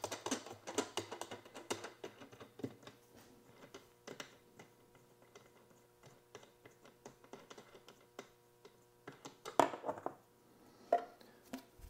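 Light clicking and tapping of hands working the plastic lid and centre knob of a vibratory case tumbler, opening it after a cleaning run. Dense clicks at first, then sparser, with a couple of louder knocks near the end.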